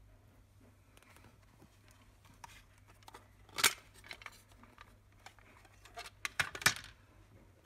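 Clear plastic cassette case being handled and snapped open, and the TDK cassette taken from it. A few sharp plastic clicks and clacks, the loudest about three and a half seconds in and a quick run of them just after six seconds, over a faint low hum.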